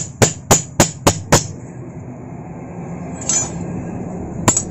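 Blacksmith's hammer striking metal on an anvil, a run of sharp ringing blows about three a second that stops about a second and a half in, then two more blows near the end.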